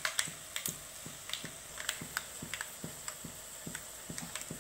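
Dried turkey berries, dals and whole spices frying in hot sesame oil in a wok: the oil crackles with quick, irregular pops, several a second, over a faint sizzle.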